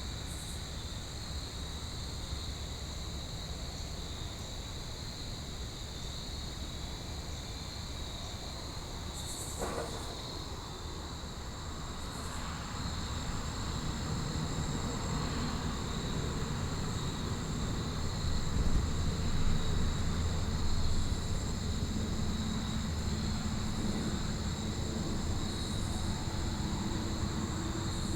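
Crickets chirring steadily in continuous high tones. A low engine rumble from a distant vehicle builds from about halfway through and is loudest a few seconds later. There is one sharp click about a third of the way in.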